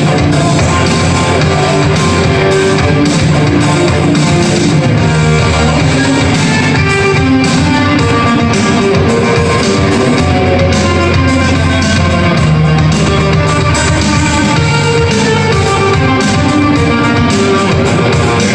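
Loud live rock instrumental led by an electric guitar played on a white Les Paul-style guitar.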